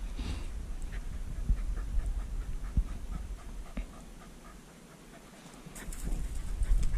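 Podenco andaluz hunting dog panting over a low rumble, with a few sharp knocks.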